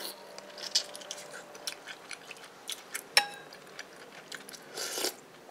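A metal spoon and chopsticks clicking and clinking against ceramic bowls, with chewing. One ringing clink comes about three seconds in.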